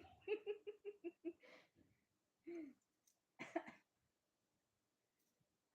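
A woman laughing in a quick run of short bursts, then two short hiccups about a second apart, the second one sharper.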